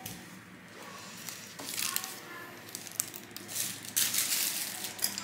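Crinkling and rustling, as of thin plastic or paper being handled: a few short bursts, then a longer, louder spell about four seconds in.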